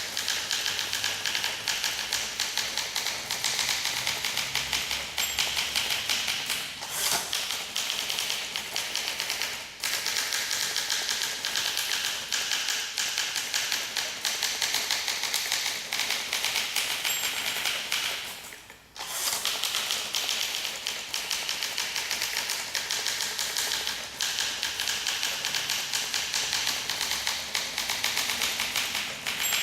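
A 1958 Olympia SM2 manual portable typewriter being typed on quickly: a dense, steady stream of key clacks. It pauses briefly a couple of times and for about a second midway.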